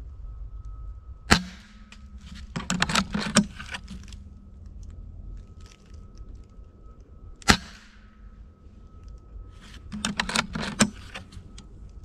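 Two rifle shots about six seconds apart, each a single sharp crack with a short echo, each followed about a second later by a brief burst of clicking and rustling.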